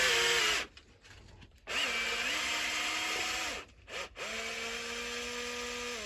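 Electric drill/driver running in three short bursts, backing out the bolts. Each run starts with a rising whine that holds steady, then drops away when the trigger is released.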